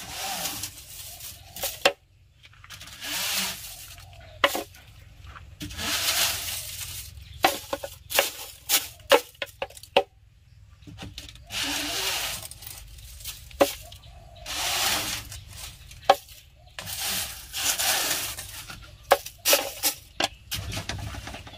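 Dried chaya leaves rustling and scraping in rhythmic swishes about every three seconds, with sharp clicks and knocks between.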